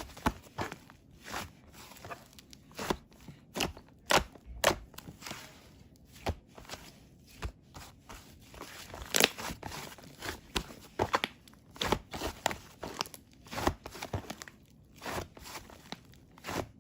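Whipped-cream-style slime being pressed and stretched by hand, giving irregular sharp crackles and pops, several a second.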